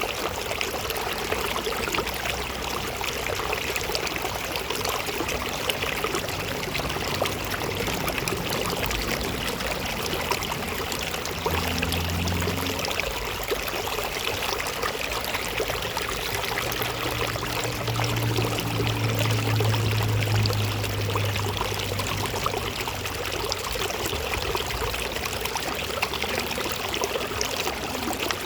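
Water flowing steadily in a stream, a continuous even rush. A low hum rises faintly underneath for a few seconds around the middle.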